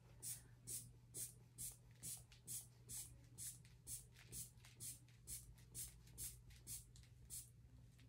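Faint, short airy puffs about twice a second from the rubber bulb of a manual aneroid blood pressure cuff being squeezed over and over to pump up the cuff; the squeezing stops near the end.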